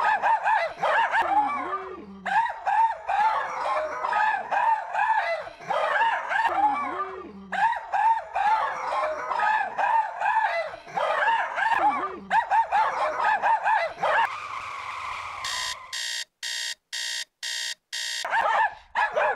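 Several small dogs barking excitedly, with rapid overlapping barks and a few lower calls mixed in. Near the end the barking gives way to a steady hiss and then six even electronic-sounding beeps, about two a second, before the barking starts again.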